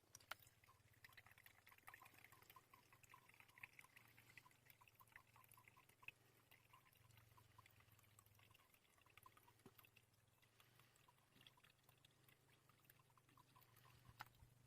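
Near silence, with faint irregular ticking and a low hum.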